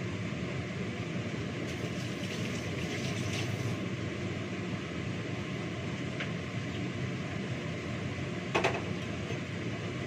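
A steady fan-like hum, with a few light clinks and knocks of plates and utensils being handled on a kitchen counter; the sharpest clink comes a little over eight seconds in.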